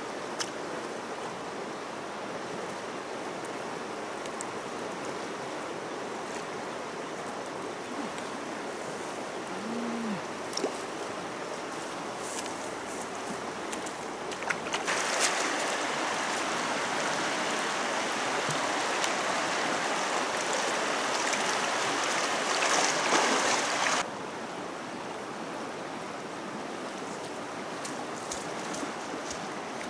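Steady rush of a muddy, flooded river flowing, louder for about nine seconds in the middle, where it starts and stops abruptly.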